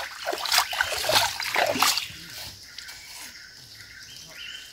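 Water splashing and sloshing as a mesh fish trap is worked in a shallow rock pool, busy for about two seconds and then much quieter.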